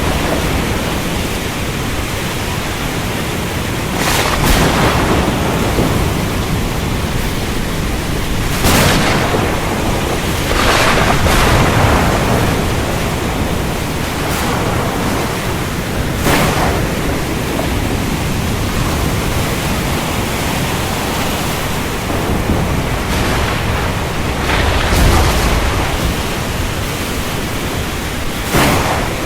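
Thunderstorm: steady heavy rain with thunder cracking and rumbling several times, the strongest strikes about four, nine, eleven and sixteen seconds in and again near the end.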